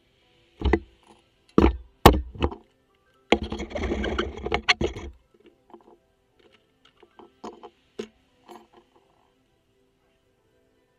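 Metal tools and brake parts clanking at a car's front brake caliper: a few sharp knocks, then about two seconds of rattling clatter, then a few light clicks. Quiet background music underneath.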